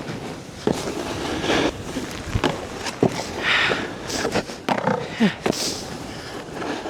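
Snowboard sliding and scraping over packed snow as the rider goes down the slope, with a run of sharp knocks and clatters scattered through it.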